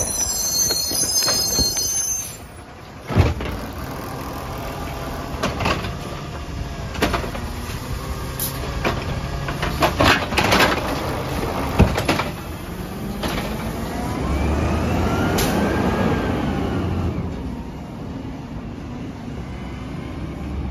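Natural-gas Peterbilt 320 automated side-loader garbage truck running at the curb while its hydraulic arm works, with several sharp bangs as a trash cart is shaken out into the hopper and a high squeal in the first two seconds. About 14 s in the engine revs up and back down as the truck pulls away.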